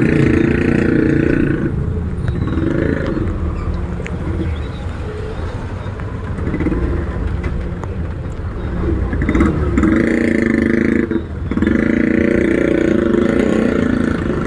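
Motor vehicle engine running during a ride, a steady low rumble that grows louder in several stretches of a second or more each, near the start and in the second half.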